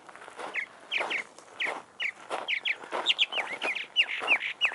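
Birds calling in short, downward-slurred chirps that come thicker in the second half, over footsteps on gravel about twice a second.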